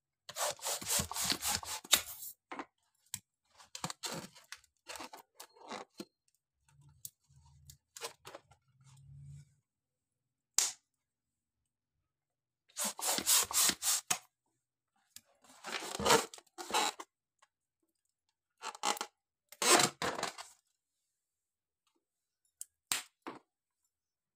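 Hands rummaging through and handling a heap of small latex water balloons: crackling, rustling rubber in bursts of a second or two, with pauses and a few single sharp clicks between them.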